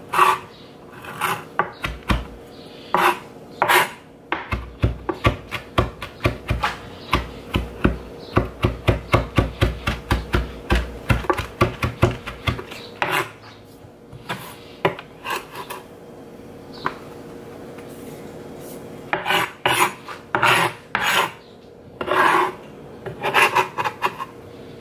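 Chef's knife chopping fresh herbs on a plastic cutting board: quick, rhythmic knocks and scrapes for about twelve seconds, then a lull, then several longer scrapes of the blade across the board.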